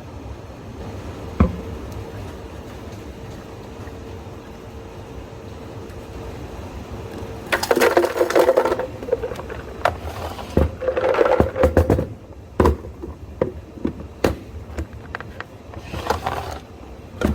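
Cafe drink-making clatter: a steady hum with a single knock, then from about halfway through, short rattling bursts and a string of knocks, as of cups, ice and utensils being handled.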